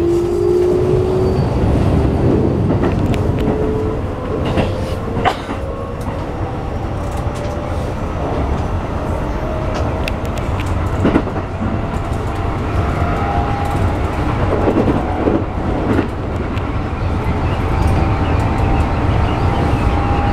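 Keikyu New 1000 series train running and accelerating, heard from inside the car: the Toyo IGBT-VVVF inverter and traction motors give a whine that climbs slowly in pitch over the rumble of the wheels on the rails. A few sharp clicks come as the wheels cross rail joints.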